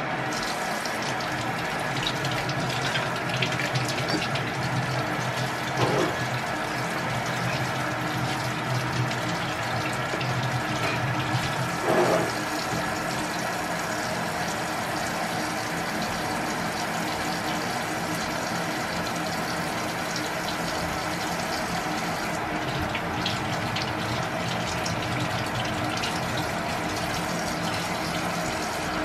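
Kitchen tap running steadily into the sink as vegetables are rinsed under it, over the steady noise of a glass electric kettle heating water. A light knock about six seconds in and another about twelve.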